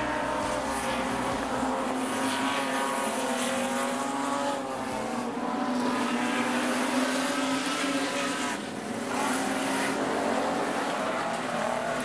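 A pack of Super Stock speedway cars racing, their V8 engines running hard at high revs. The sound fades briefly twice, about halfway through and again near three-quarters of the way, as the cars move away around the track.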